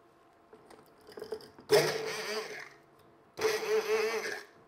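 Stick blender whirring in two short pulses of about a second each, its blade head down in a glass jar, blending hot chai into chocolate to form a ganache emulsion.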